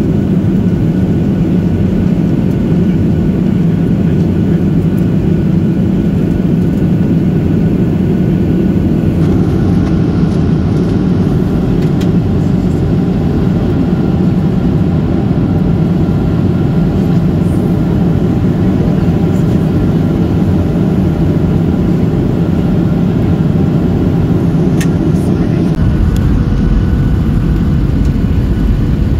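Steady cabin noise of a Ryanair Boeing 737-800 in descent, heard from a window seat over the wing: engine and airflow rumble. About nine seconds in the sound gets a little brighter, and near the end a deeper low rumble comes in.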